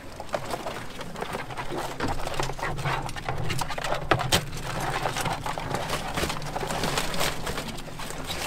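Live Dungeness crabs clicking and clattering, their hard shells and legs knocking against each other, the wire crab pot and a plastic garbage can as they are handled and dropped in. Irregular hard taps throughout, over a steady low hum.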